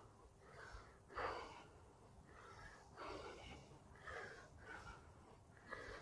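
A man's faint breathing close to the microphone: short, audible breaths about once a second.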